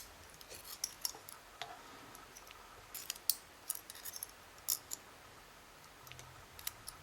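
Light, irregular metallic clicks and ticks of small lock pins, springs and a pick being worked out of the pin chambers of an ABUS 90/50 padlock as it is disassembled.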